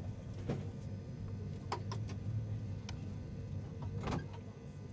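Inside a passenger train running along the track: a steady low rumble with a handful of sharp, irregular clicks and knocks.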